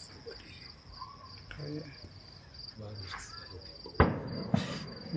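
Crickets chirping steadily in a fast, even trill, with a single sharp firework bang about four seconds in and a short hissing crackle half a second after it.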